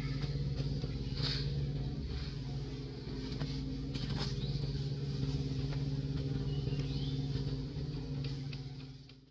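A steady low motor hum, like an engine running, with a few faint high chirps over it; it fades out near the end.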